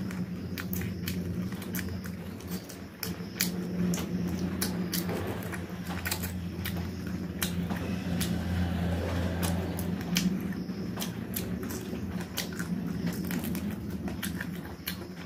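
Close-miked eating sounds of a man biting and chewing meat off chicken leg pieces: many sharp, irregular wet mouth clicks and smacks. A steady low hum runs underneath.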